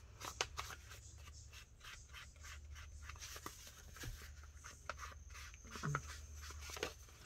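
Faint, irregular light taps and scratchy rustles from hands working with paper, several a second, over a steady low hum.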